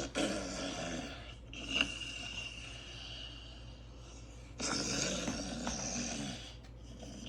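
Recorded human snoring played back through a speaker: two loud snores about four seconds apart, with a quieter stretch between them.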